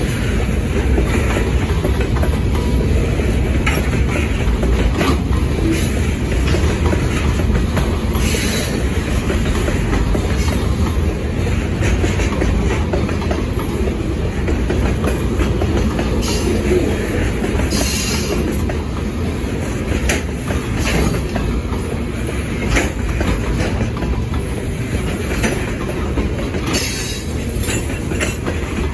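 Freight train's covered hopper cars rolling past, a steady rumble of wheels on rail with clickety-clack over the rail joints. Brief high-pitched wheel squeals come a few times.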